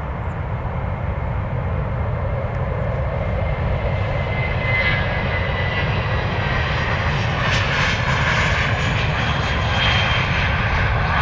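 Airbus A321 jet engines at takeoff thrust during the takeoff roll and lift-off, a steady roar that grows louder as the aircraft passes, with a brief high whine about five seconds in.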